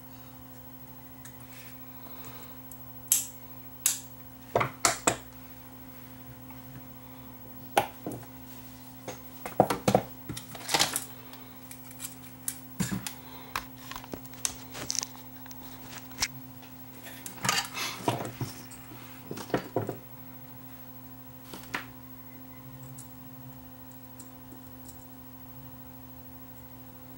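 Irregular clicks and clinks of a small cassette-deck capstan motor and its circuit board being handled and set down on a workbench, busiest about a third and two thirds of the way in and dying away near the end. A steady low hum runs underneath.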